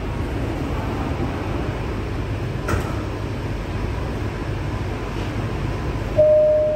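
Steady low hum of a Bukit Panjang LRT C801B car standing at a station with its doors open, with a single click about two and a half seconds in. Near the end a clear electronic chime tone sounds, the first note of the door-closing warning chime.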